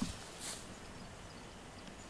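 Footsteps swishing through long grass, with a few faint bird chirps in the background.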